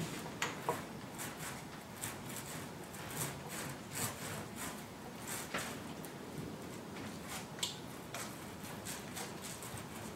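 Faint, irregular scratchy strokes of a brush working roll-on bed liner coating onto a pickup truck bed, a few strokes a second.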